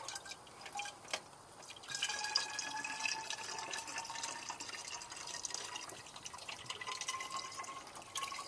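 Coolant poured from a plastic jerrycan into a Peugeot 106's coolant expansion tank, topping up the system after a radiator replacement. The pour picks up about two seconds in, with a faint tone that rises slowly in pitch as it goes on.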